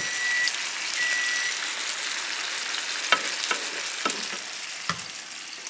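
Chicken meatballs sizzling in a frying pan, a steady hiss, with a few sharp clicks of a utensil against the pan from about three seconds in. A microwave timer beeps twice near the start.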